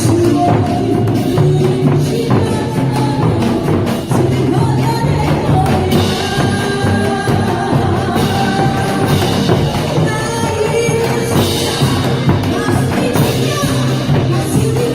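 A song with a steady beat, a singing voice and a tambourine.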